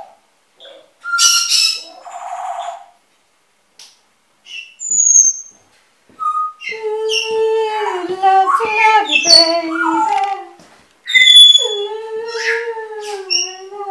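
Caged pet parrots chattering: a sharp squawk about a second in, a short buzzy call and a high whistle, then from about halfway a long unbroken run of wavering, speech-like chatter.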